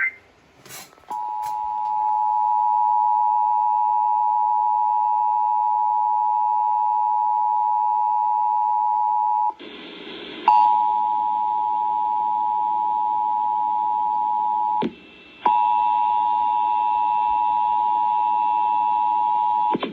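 Emergency Alert System two-tone attention signal (853 and 960 Hz sounded together), a steady harsh dual tone broadcast at the start of a required monthly test. It sounds from about a second in, breaks for about a second near the middle and briefly a few seconds later, then carries on until just before the end.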